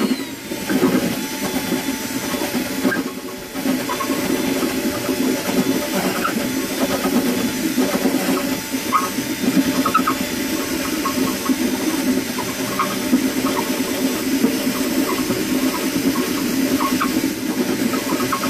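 Cordless drill running steadily under load, its stepped bit widening a hole through the wooden side of an oud's body, with small irregular ticks as the bit cuts.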